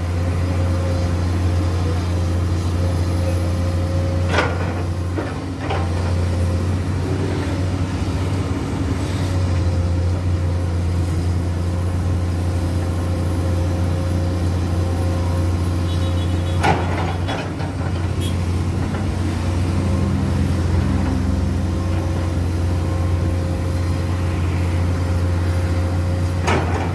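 Komatsu PC200 excavator's diesel engine running steadily while it works, with a steady whine over the engine drone. Three sharp knocks come about 4 seconds in, about 17 seconds in and near the end.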